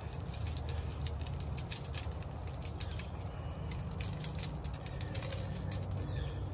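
BBQ rub shaken from a shaker bottle, the granules pattering in quick, irregular ticks onto raw pork ribs on a wire rack over a foil-lined tray. A steady low rumble runs underneath.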